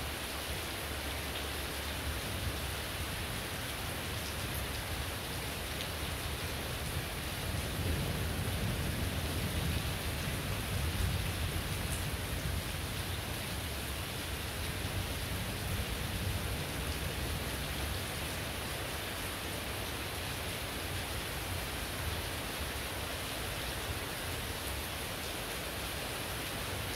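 Heavy tropical rain falling steadily on the ground and roofs, a dense even hiss. About a third of the way in, a low rumble swells up for several seconds and then fades.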